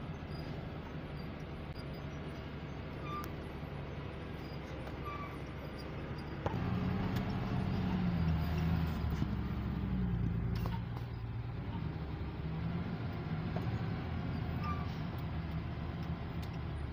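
Heavy truck's diesel engine running under load on a steep climb. It gets louder about six and a half seconds in, with the engine note shifting as it pulls.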